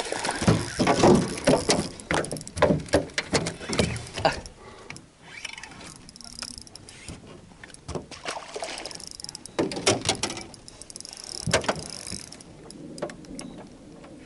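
Irregular knocks and clatter in an aluminium fishing boat, busiest in the first four seconds and again around ten to twelve seconds in.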